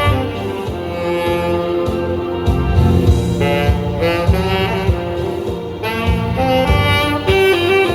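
Instrumental music: a saxophone carries the melody over a backing track with a regular beat.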